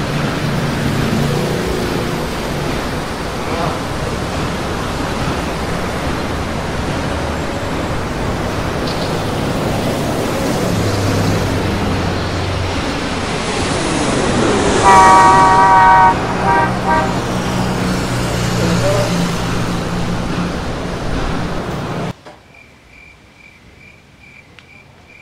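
Loud, steady street traffic noise with a car horn honking about 15 seconds in and a shorter honk just after. It cuts off suddenly a few seconds before the end, leaving a quiet background of crickets chirping in an even rhythm.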